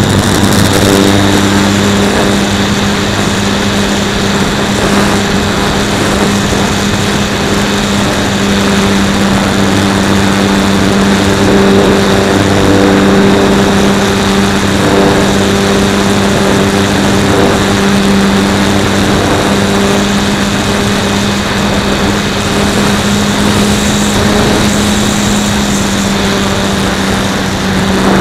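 Super Cub S electric RC plane's motor and propeller running steadily under power through the takeoff roll and climb, heard from a camera mounted on the plane: a loud, steady buzzing tone over rushing air.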